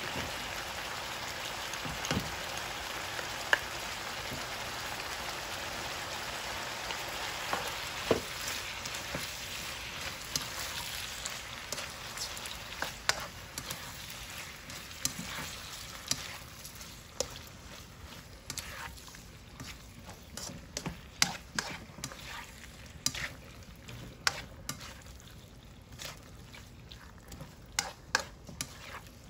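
Chicken, loofah and black fungus stir-frying in a nonstick wok with oyster sauce: a steady sizzle that slowly fades, with sharp taps and scrapes of the spatula against the pan throughout, standing out more toward the end.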